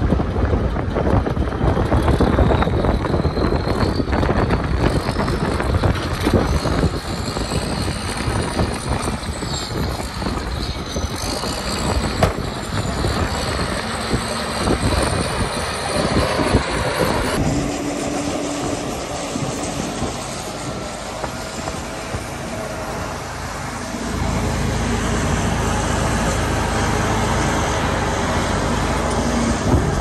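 Diesel engines of a dump truck and a crawler bulldozer running under load as the dozer pushes dumped dirt, with a high whine rising and falling in the first half. The sound changes abruptly about two-thirds of the way through, and a louder, deeper engine rumble takes over for the last few seconds.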